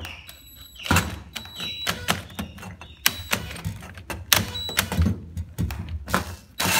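Bimetal hole saw on a slowly turning drill biting into a sheet-metal air-handler panel: irregular sharp clicks and knocks as the teeth catch and chatter in the steel. Near the end a loud, steady hiss begins as WD-40 is sprayed onto the cut.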